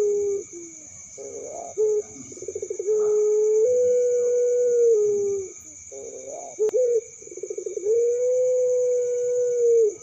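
Puter pelung (Barbary dove) cooing repeatedly: a rising note and a fast rolling, stuttering trill lead into a long, steady drawn-out coo, and the phrase comes round twice. Crickets trill steadily behind, with one sharp click just before the second trill.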